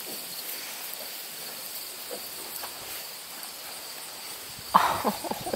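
Outdoor ambience of insects chirring steadily in the grass. Near the end, a sudden louder noise followed by a few short irregular sounds.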